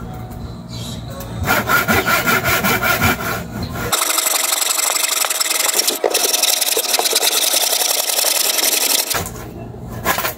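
Handsaw cutting through a wooden table leg in quick, steady back-and-forth strokes. The sawing starts about a second and a half in, pauses briefly in the middle and stops shortly before the end.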